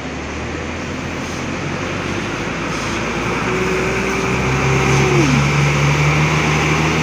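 Intercity coach's diesel engine running as the bus pulls away and drives past, growing louder over the first five seconds. Midway a steady whine holds for about two seconds and slides down in pitch as it ends, and a deeper hum comes in alongside it.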